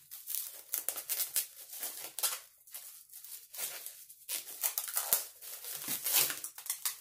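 Thin clear plastic machine bag crinkling and rustling in quick, irregular handfuls as it is worked over a tattoo machine and its grip.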